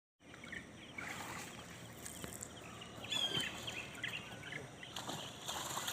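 Outdoor ambience with birds calling in short chirps, loudest about three seconds in, and a few soft knocks or splashes.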